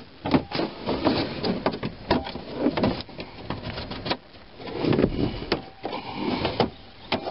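Plastic locking clips of a Dodge Ram's upper dash cover panel snapping loose as the panel is pried up with a trim tool: a series of sharp, irregular clicks and snaps, with plastic rubbing in between.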